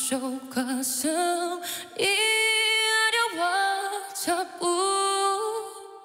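A young woman singing a slow Korean ballad, her voice almost alone, holding long notes; the last held note fades away near the end.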